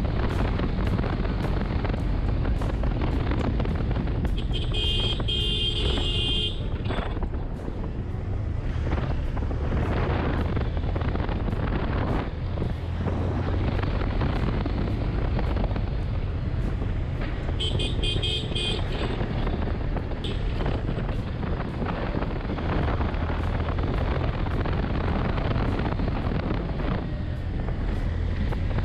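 Honda X-Blade's single-cylinder engine running at riding speed, with wind rushing over the microphone. A horn sounds twice, each for about a second and a half: about five seconds in, then again about eighteen seconds in.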